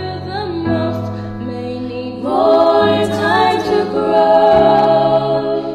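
A cappella vocal harmony: one woman's voice layered into several parts, singing sustained chords that change together every second or two.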